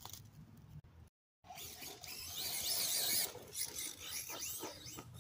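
A Traxxas Slash 2WD RC truck's electric drivetrain (motor with new 32-pitch 16-tooth pinion and 56-tooth spur gears) whines high as it revs up and down, with tyres scrabbling and spraying sand. The audio cuts out briefly about a second in, and the whine rises and falls several times after that.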